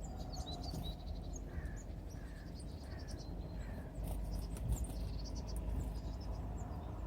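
Small songbirds calling: many short high chirps, with three lower falling notes in the first half. A few clicks come about four seconds in, over a steady low rumble.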